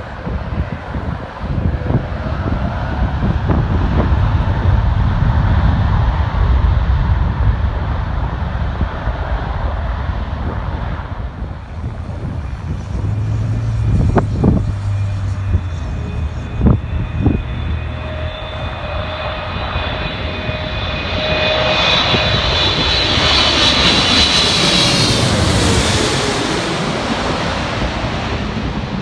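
Jet airliners landing: first the low, distant rumble of a Boeing 787-9 on the runway, then an All Nippon Airways Boeing 777-300 on final approach passing low overhead. Its engine whine, with steady high tones, swells to its loudest about three quarters of the way through and then fades. Two brief thumps come around the middle.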